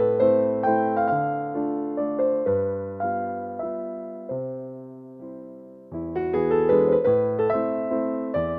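Background piano music: single notes and chords struck and left to ring away. The playing thins and fades about four to six seconds in, then a new phrase begins.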